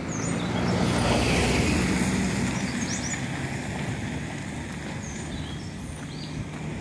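A car driving by on a dirt road: engine hum and tyre noise swell to their loudest about a second in, then slowly fade. Birds chirp briefly now and then.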